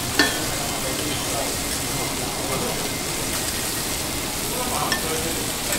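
Food sizzling on a teppanyaki griddle, a steady hiss, with a single sharp clink about a quarter second in.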